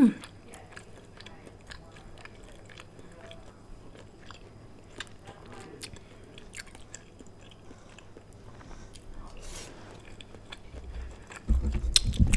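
Chewing and biting into Panda Express food: soft, wet mouth clicks and small crunches scattered throughout. Near the end comes a louder, low rumbling sound.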